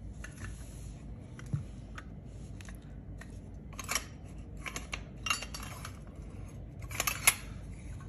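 Metal Zippo lighter cases clinking and tapping against each other and the mat as they are set down and picked up. There are scattered light clicks, with small clusters of sharper clinks about four, five and seven seconds in.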